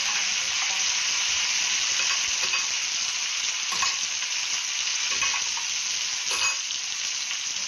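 Egg-coated eggplants (tortang talong) frying in bubbling oil in a pan, a steady sizzle, with a few short clicks in the middle.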